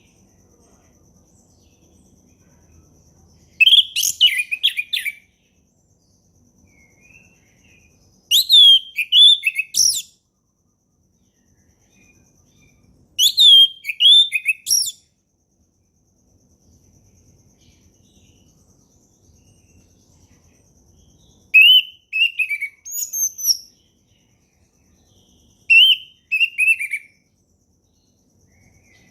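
Orange-headed thrush singing: five short phrases of rapid whistled notes that swoop up and down, a few seconds apart. A faint steady high tone runs between the phrases.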